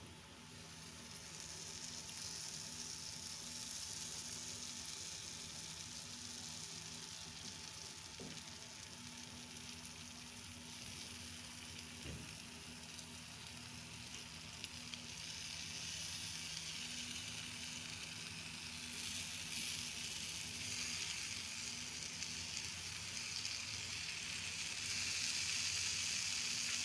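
Stuffed pita-bread pizza pockets sizzling steadily in a frying pan over a low flame, the hiss growing louder over the last several seconds.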